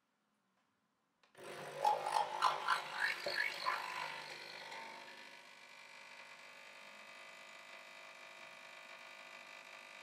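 Capsule coffee machine starting to brew a large cup: its pump comes on suddenly about a second in with a few seconds of pulsing, uneven buzz, then settles into a steady, quieter hum as the coffee runs into the mug.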